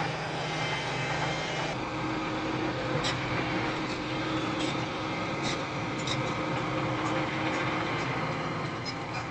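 Heavy diesel engine of a SANY SY365H Pro excavator running steadily under working load, with a few short knocks now and then.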